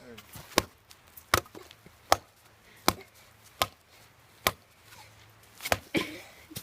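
Repeated hard blows striking a hard drive, about eight evenly spaced hits, one roughly every three-quarters of a second.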